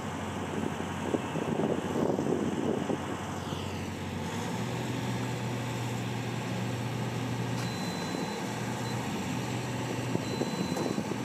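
Cherry picker (boom lift) engine running steadily, its pitch stepping up about four seconds in as the machine is worked from the basket controls. Short high beeps sound on and off near the end.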